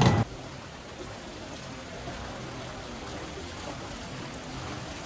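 A street performer's music and tapping cut off abruptly a moment in. After that, steady quiet open-air plaza ambience: a soft, even hiss with a faint low rumble.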